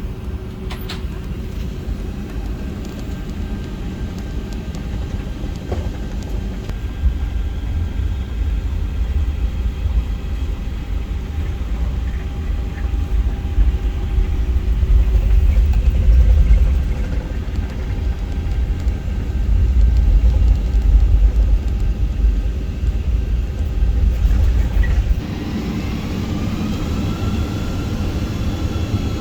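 Jet airliner cabin during the takeoff roll: engine noise over a heavy rumble from the wheels on the runway that builds and surges. Near the end the rumble cuts off suddenly at liftoff, leaving the engines' steady noise with whining tones that rise.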